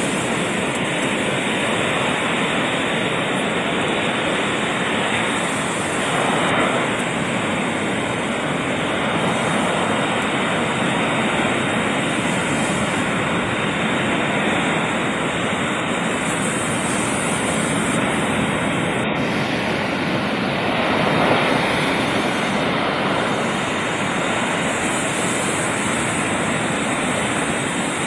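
Ocean surf breaking and washing up a sandy beach: a steady rush of waves, swelling slightly about six seconds in and again about twenty-one seconds in.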